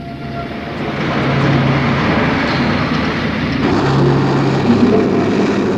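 Engine and road rumble of a canvas-covered military truck driving, as a cartoon sound effect. It fades up over the first second and then runs steadily.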